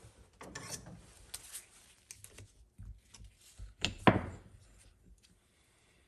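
Scattered light clicks and rubbing of small oily metal transfer case parts being handled, with one sharper knock about four seconds in.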